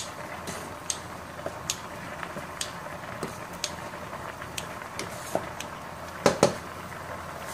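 Kitchen scissors snipping spaghetti in a pot of boiling water: irregular sharp snips every half second to a second over the steady bubbling of the water. Two louder clicks come close together about six seconds in.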